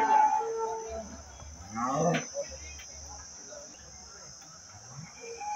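Insects chirring in a steady high-pitched drone, with a brief loud call about two seconds in.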